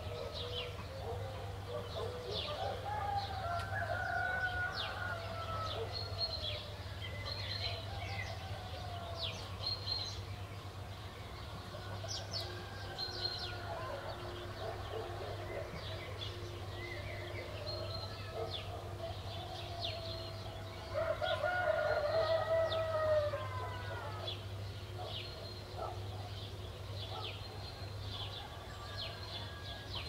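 Roosters crowing, the loudest crow about two-thirds of the way in, amid many small birds chirping. A low steady hum runs underneath.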